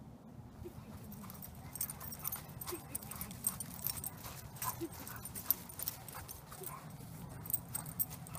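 Running footsteps of a person and a dog on thin crusty snow over frozen grass: a quick, irregular run of soft crunches and ticks.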